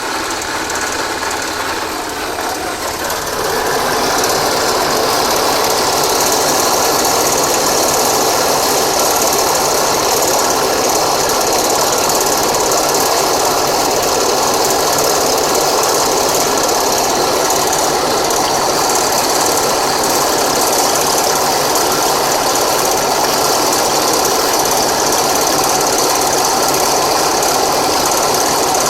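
Suzuki Let's 4 scooter's 49cc four-stroke single-cylinder engine running just after being started. It picks up about three to four seconds in and then runs steadily. The engine has an abnormal noise (異音) in its running sound.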